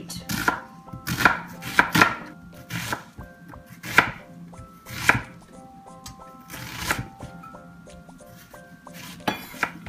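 Chef's knife dicing a red onion on a wooden cutting board: irregular knocks of the blade through the onion onto the board, about a dozen, coming more sparsely after the middle.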